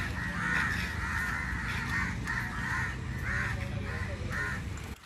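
Crows cawing over and over, a run of short caws coming about two a second, over a steady low rumble.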